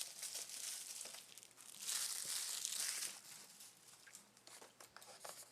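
Trading-card foil pack wrappers crinkling and tearing as packs are opened and handled, loudest about two to three seconds in.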